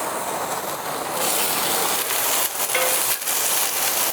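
Sliced onions sizzling in oil on a hot carbon-steel griddle, just put down to fry. The steady hiss grows louder about a second in.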